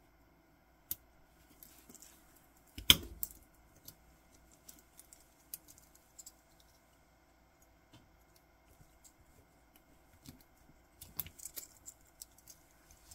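Metal watch bracelet being handled: scattered light clicks and clinks of its links, with one sharper click about three seconds in and a quick run of clicks near the end.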